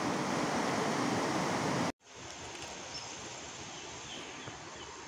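Steady rush of a fast-flowing river. It cuts off about two seconds in, giving way to quieter outdoor background with a few faint high chirps.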